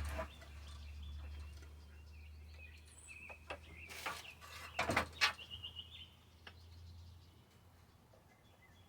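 A few sharp clicks and knocks of tools on a Homelite chainsaw's housing, loudest about four and five seconds in, with faint bird chirps and a low steady hum behind them.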